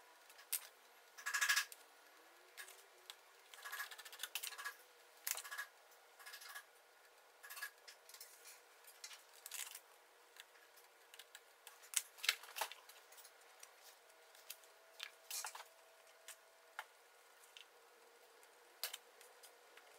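Small pieces of sawn wood veneer being handled and fitted into place on an assembly board: irregular light clicks and taps with a few short scratchy rustles, loudest at the start and about twelve seconds in.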